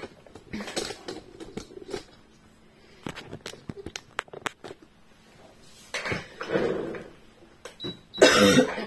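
Small clicks at a Brother Innov-is sewing machine as its stitch-selection dial is turned: a quick run of sharp clicks a few seconds in. Soft rustles of fabric and handling come in between, with a louder rustle near the end.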